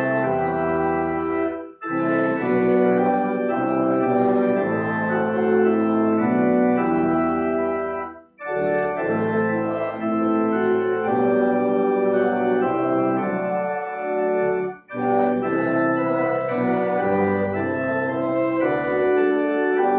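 Church organ playing sustained chords in phrases, with brief pauses between phrases about two, eight and fifteen seconds in.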